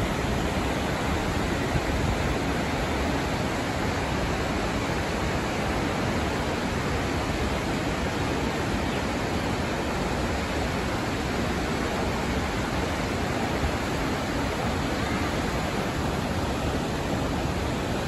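Steady rushing of Snoqualmie Falls and the river tumbling over rocks below it, an even, unbroken noise.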